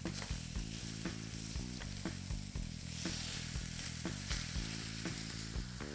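Chicken legs sizzling in hot fat in a frying pan, just turned over to sear the second side: a steady hiss with scattered pops.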